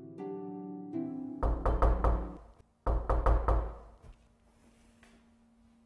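Soft plucked-string music stops about a second and a half in and gives way to knocking on a door: two quick rounds of several knocks each, a short pause between them.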